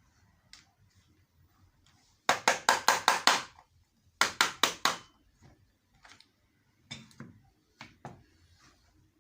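Sharp knocks: a quick run of about seven, a short pause, then five more, followed by a few scattered single knocks.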